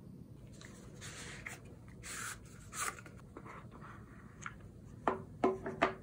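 Close handling sounds: soft rubbing and rustling, then several sharp clicks in quick succession near the end.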